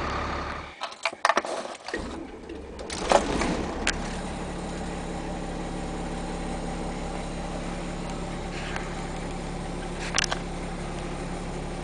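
The motorhome's 300 hp Caterpillar diesel engine is started after a few clicks: it catches about three seconds in and then idles steadily.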